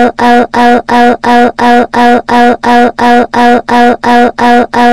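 Text-to-speech voice (the "Ivy" voice) saying "Oh!" over and over, the same clip looped about three times a second.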